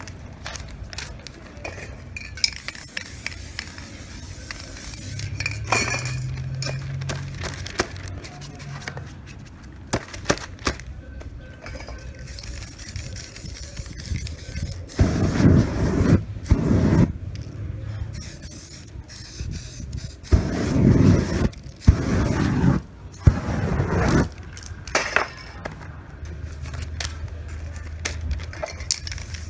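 Aerosol spray-paint cans hissing in short and longer bursts onto a canvas, with small clinks of cans and tools being handled between sprays. The longest, loudest bursts of spray come about halfway through and again a few seconds later.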